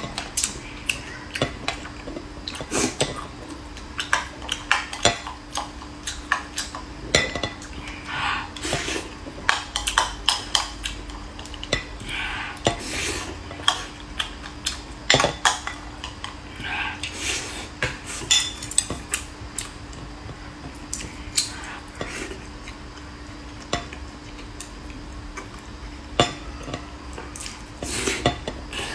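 Spoon and chopsticks clicking and scraping against a glass rice bowl and a ceramic plate, many sharp clinks at irregular intervals, with close-up chewing and mouth sounds in between. A steady low hum runs underneath.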